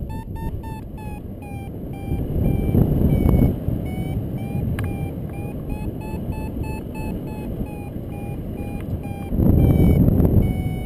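Paragliding variometer beeping steadily, a short tone repeated about three times a second, the climb signal that the glider is rising in lift. Wind rushes over the microphone underneath and swells loudest twice, about two seconds in and again near the end.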